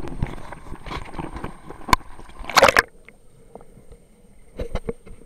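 Handling knocks and water sloshing as a handheld action camera is plunged into shallow seawater. The sound cuts to a dull, muffled murmur just under three seconds in as the camera goes under, with a few faint knocks near the end.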